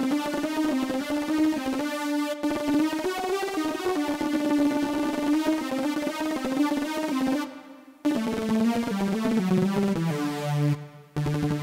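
Synthesizer played from a keyboard in very fast runs of rapidly repeated notes. The notes hold mostly on one pitch, then step down in small steps near the end, and the line breaks off briefly a few times.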